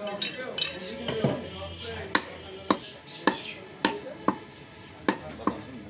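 A butcher's heavy knife chopping beef on a wooden stump block: about seven sharp strikes roughly half a second apart, beginning about two seconds in. A few metallic clinks of steel blades come near the start.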